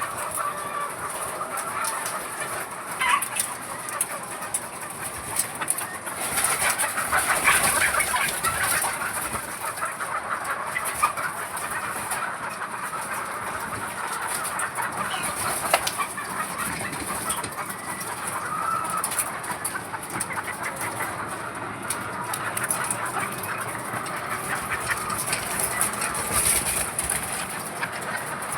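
A flock of caged laying hens clucking and calling over one another, over a steady high hiss.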